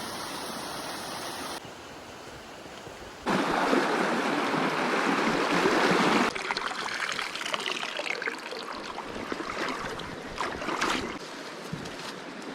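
Mountain stream water running, heard in several short shots cut together; it is loudest for about three seconds in the middle.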